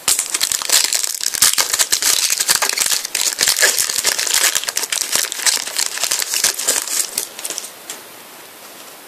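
A foil trading-card packet being crinkled and torn open by hand: a dense, crackling rustle that stops near the end.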